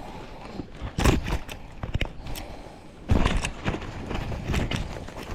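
Irregular splashes and knocks of water and handling as a pike is held in the water to revive.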